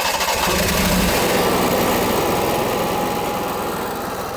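An RV's onboard generator running just after starting up, a steady engine sound whose low note shifts about a second in as it settles, then eases slightly in level.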